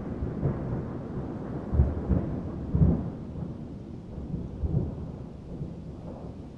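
Muffled underwater ambience: a low, churning water rumble with soft irregular thuds, easing off slightly toward the end.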